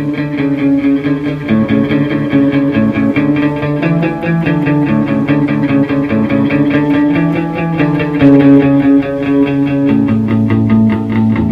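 Instrumental music with guitar, its held notes changing every second or so.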